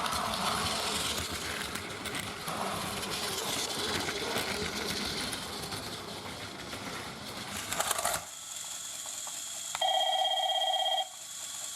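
Battery-driven Plarail toy train running along plastic track, a steady mechanical whirr and rattle, which stops about eight seconds in. About a second later a short electronic tone sounds for about a second.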